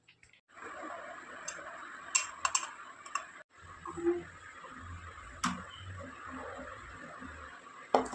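Steady rain hiss with a handful of sharp ticks scattered through it.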